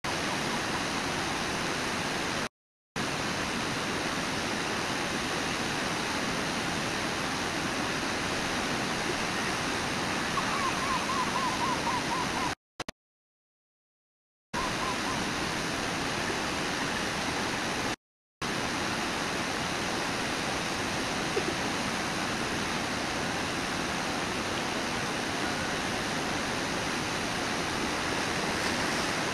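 Steady rush of the Brooks River's water at the falls. The sound cuts out to silence briefly three times.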